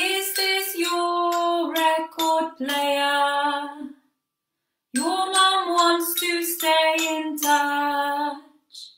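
A woman singing two short melodic phrases unaccompanied, the second starting about five seconds in.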